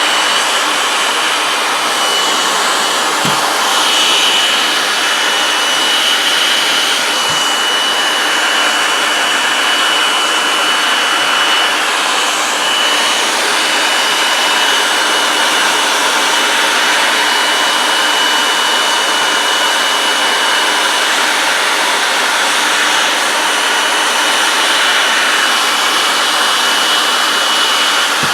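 Electric hot-air blower running steadily, a constant rush of air with a thin high whine, heating a vinyl skin wrap to set it onto a polymer rifle magazine. Two faint knocks about 3 and 7 seconds in.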